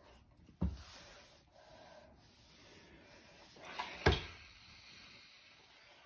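Cloth rubbing and sliding as a strip of fabric is smoothed, folded and pressed flat on a cloth-covered ironing board. There are two dull knocks, one about half a second in and a louder one about four seconds in, the second as the clothes iron is handled.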